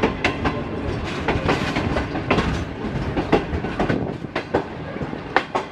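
Passenger-train coach wheels clattering over the rail joints of junction track, heard from the open door of the moving coach: a quick, uneven run of sharp clacks over a steady rumble.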